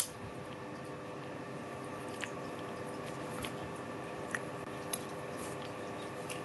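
A steady low hum with a few faint level tones, broken by several small, sharp clicks: a louder one right at the start, then lighter ones about two, three and a half, four and a half and five seconds in.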